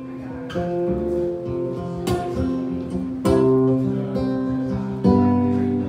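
Acoustic guitar strummed and picked, solo, in a slow song: chords ring on between strokes, with firmer strums about two, three and five seconds in.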